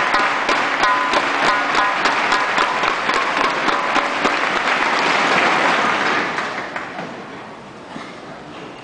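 Spectators in a sports hall applauding, a dense clapping with sharp individual claps, which dies away about two-thirds of the way through to a quieter hall murmur.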